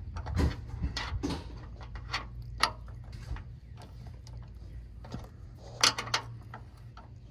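Ratchet wrench clicking and knocking irregularly against metal while tightening the bolts that hold an air suspension compressor to its bracket; a sharp pair of clicks about six seconds in is the loudest. A steady low hum runs underneath.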